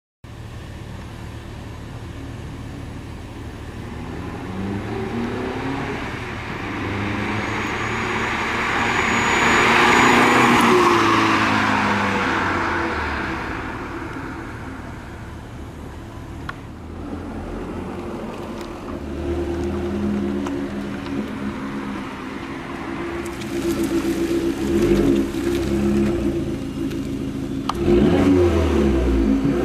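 Abarth 500's turbocharged 1.4-litre four-cylinder exhaust: the car accelerates with rising pitch and passes close by, loudest about ten seconds in. It then idles with short revs about two-thirds of the way through and again near the end.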